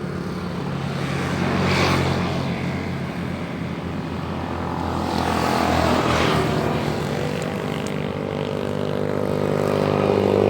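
A motor engine running steadily, with its pitch and loudness climbing near the end. Two swells of rushing noise pass over it.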